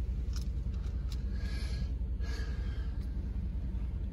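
Low, steady rumble of a car's engine and road noise inside the cabin while rolling slowly. Two short breathy hisses come about one and a half and two and a half seconds in.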